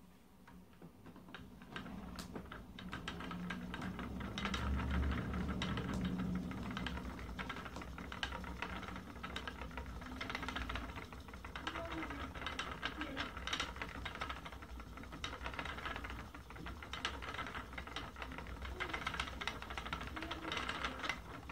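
Wooden spinning wheel starting up about two seconds in and then running steadily as it is treadled, with a dense rattle of rapid clicks over a low hum from the turning wheel and flyer.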